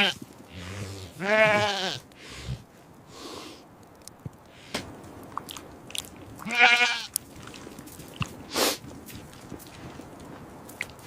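Sheep bleating: two long, wavering bleats, one about a second in and another past the middle, with scattered soft crunches between them.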